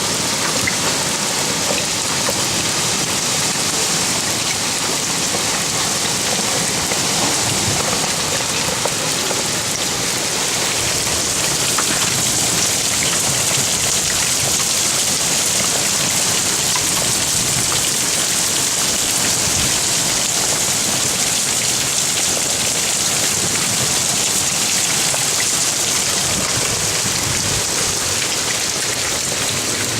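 Heavy rain pouring down in a storm, a dense, steady hiss of drops striking surfaces.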